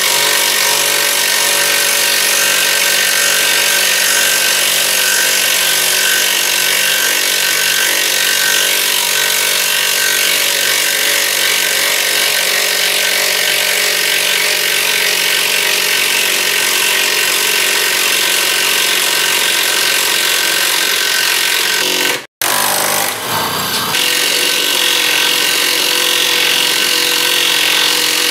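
Graphite 58G018 18 V cordless impact wrench running continuously under load, its hammering mechanism driving long construction screws into a timber beam. The sound drops out briefly about three-quarters of the way through, then resumes.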